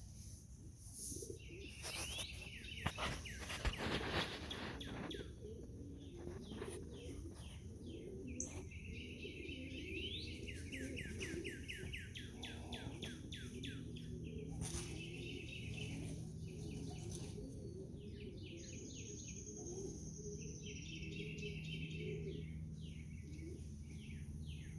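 Small birds chirping and twittering in quick repeated series, with a couple of sharp knocks about three to four seconds in.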